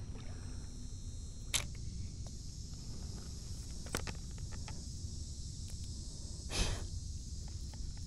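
Steady outdoor ambience with a low rumble and a high hiss, broken by a few soft clicks and, about six and a half seconds in, a short louder rustle as hands handle a soft-plastic lure and a plastic tackle tray.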